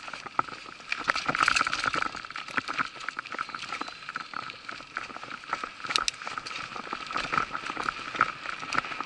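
Mountain bike rolling fast over a dirt forest trail: tyre noise on the ground with a dense, irregular run of knocks and rattles as the bike and camera mount jolt over bumps.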